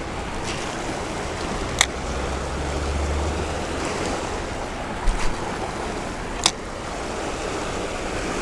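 Rushing water of a small cascading creek, a steady noise, with three short sharp clicks at about two, five and six and a half seconds in.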